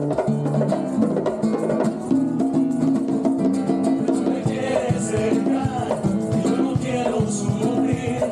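A live band playing upbeat Latin music: sustained melody notes over a steady percussive beat.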